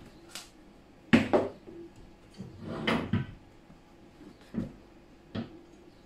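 Knocks and clunks as the rubber print belt of a CR30 belt 3D printer is worked off its metal frame and the frame bumps the benchtop: about five separate knocks, the loudest pair just over a second in.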